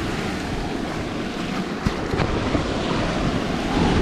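Sea surf washing against a concrete breakwater, with wind buffeting the microphone. Two short clicks sound about halfway through.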